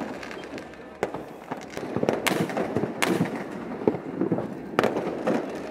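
Fireworks going off: a string of sharp bangs, four of them strongest, at about one, two, three and nearly five seconds in, with a rough crackling noise between them.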